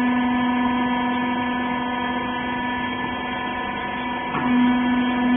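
Rag compression baler's hydraulic pump motor running with a steady hum. About four seconds in, the tone wavers and dips briefly, then runs on slightly louder.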